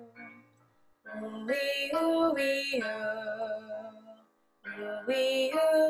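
A woman singing a vocal warm-up exercise in held notes that step up and then back down, in two phrases with a short breath between them.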